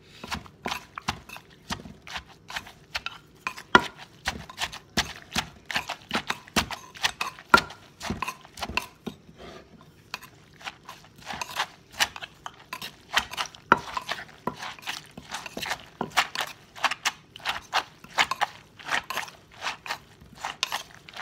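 Wooden pestle pounding shredded green papaya salad in a clay mortar while a spoon turns it over. The knocks are uneven, about two or three a second, with a short lull about ten seconds in.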